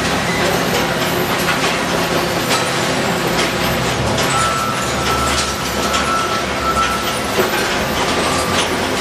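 Recycling-plant conveyor belt and sorting machinery running, with mixed recyclables clattering and rattling over a steady low hum. A thin high whine comes and goes in the middle.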